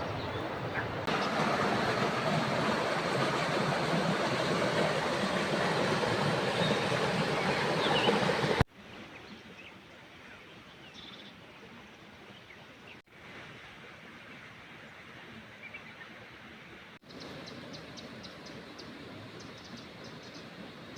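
Steady rushing outdoor noise, loud for the first eight or so seconds. It then cuts abruptly to quieter background ambience, which changes twice more at sudden cuts, with a few faint high chirps and a short run of ticks near the end.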